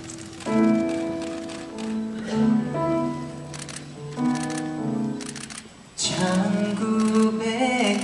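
Live symphony orchestra playing a ballad's introduction: sustained string chords with new notes entering every couple of seconds. About six seconds in, the music swells and a male voice begins singing over it.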